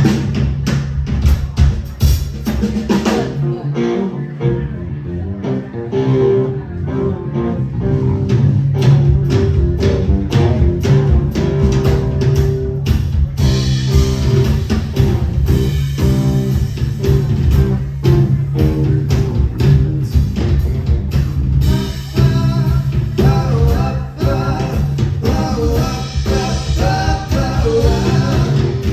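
Live rock band playing a blues-rock passage through a soundcheck run-through, with drum kit and guitar over a steady low bass line.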